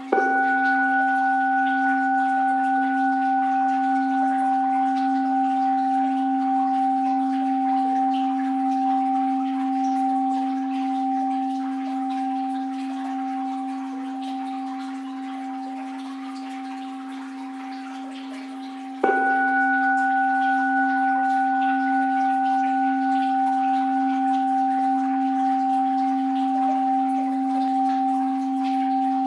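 An orin, the Japanese Buddhist bowl bell, is struck twice: once at the start and again about 19 seconds later. Each strike rings on in a long, slowly fading hum of a low tone with clear higher overtones.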